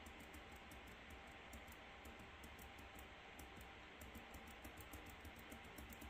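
Near silence: room tone with a faint, rapid high ticking, about six ticks a second.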